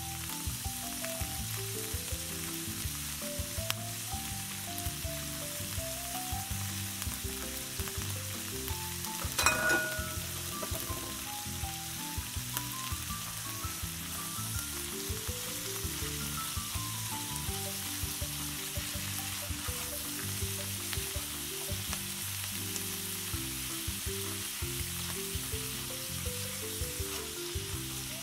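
Crayfish sizzling in a hot cast-iron skillet as they are tossed with tongs, a steady frying hiss. One ringing clink about nine and a half seconds in, over background music with a slow melody.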